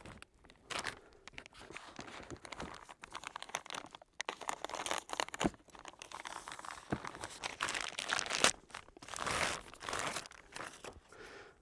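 Clear plastic packaging bags crinkling and rustling as rifle parts are pulled out and unwrapped by hand, in uneven crackles that are loudest in the last few seconds.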